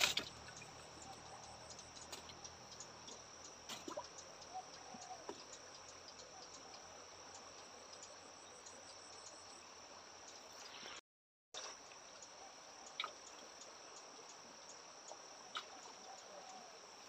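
Faint, steady, high-pitched insect chirring, with scattered small clicks and drips of water. The sound cuts out for about half a second near the middle.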